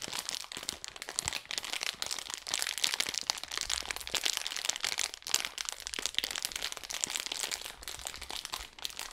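Thick plastic from a pasta bag crumpled and kneaded between the hands, a dense, unbroken run of fine crackles, made as a foley imitation of a crackling fire.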